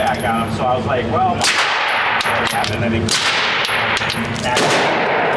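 Suppressed 9mm pistol fired three times, about a second and a half apart, each shot a sharp crack over steady loud background noise.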